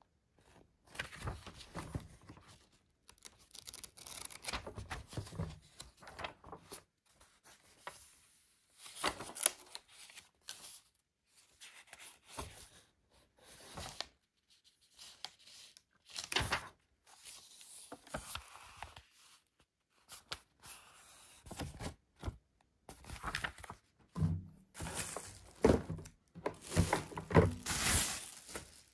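Irregular rustling, tearing and knocking of plastic and packaging being handled, in short bursts with pauses, busiest near the end.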